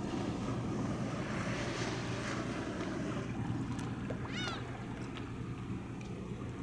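Wind on the microphone and waterside noise over a steady low hum of ship engines across the harbour. About four seconds in, a single short high call rises and falls.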